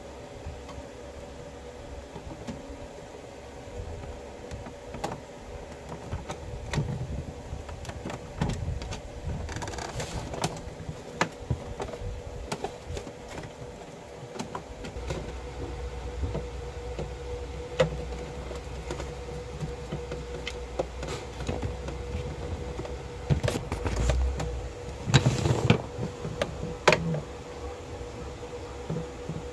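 Screwdriver and plastic printer parts clicking, tapping and scraping as the printer is taken apart: scattered sharp clicks, with a busy run of knocks near the end. A faint steady hum runs underneath.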